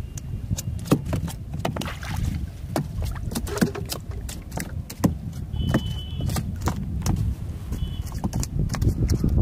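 Water sloshing and splashing in irregular sharp bursts as a wader's hands and legs move through shallow water while he works a bamboo-staked fishing net, over a steady low rumble.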